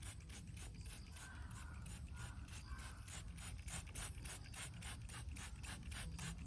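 Quick, even scratchy strokes, about five a second, with no pause.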